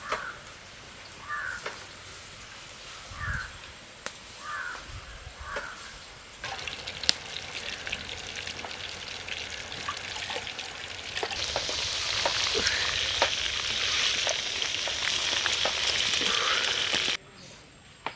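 Hot oil sizzling in a pan as food fries, the sizzle growing louder about halfway through and cutting off abruptly near the end. In the first few seconds, before the frying starts, a crow caws several times.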